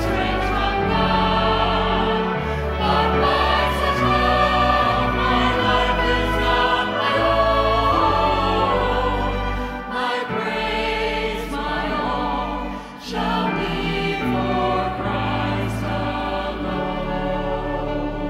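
Church choir singing a slow hymn in parts, with steady low instrumental accompaniment underneath; the sound briefly drops between phrases about ten seconds in and again about thirteen seconds in.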